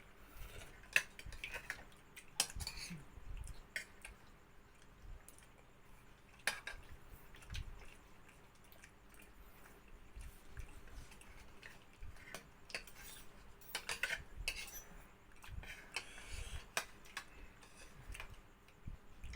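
Spoons clinking and scraping against plates and bowls while eating, in irregular sharp clinks scattered throughout.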